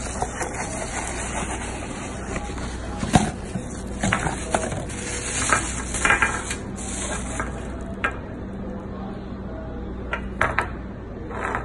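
Cardboard parts boxes and a plastic bag being handled: irregular rustling and light knocks, over a steady hiss and low hum.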